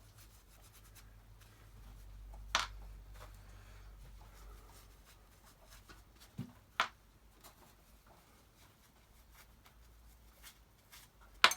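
Wax-coated screws being driven by hand with a screwdriver into the wooden toolbox's hinges: quiet scraping and handling, with three sharp clicks, the last and loudest near the end.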